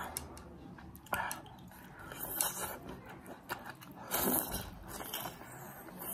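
Close-up eating sounds: spicy instant noodles slurped into the mouth in noisy bursts about two seconds in and again around four seconds, with chewing between, and a bite into a long green chilli near the end.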